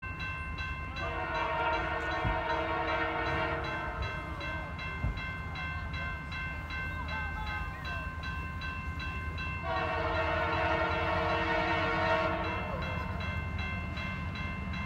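Canadian Pacific diesel locomotive horn sounding two long blasts, the second about eight seconds after the first, as the train approaches a grade crossing. Between and under the blasts, the crossing's warning bell rings steadily and rapidly.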